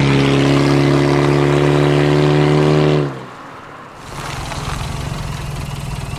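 1998 Chevy Prism's four-cylinder engine, running on chocolate milk in place of engine oil, holding a steady loud note for about three seconds, then dropping abruptly to a quieter, rhythmic idle as the car stops. The engine is still running despite the milk in the crankcase.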